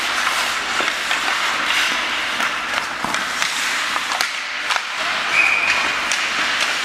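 Ice hockey skates scraping and carving on rink ice, with repeated sharp clacks of sticks and puck during a small-area game.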